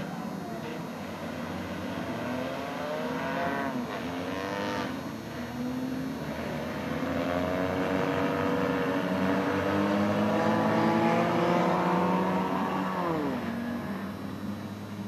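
Several car engines revving up and down together as skid-plate cars slide around the asphalt track, with a noisy scraping haze underneath from metal skid plates sparking on the pavement. The engines are loudest around ten to twelve seconds in, and one drops sharply in pitch shortly after.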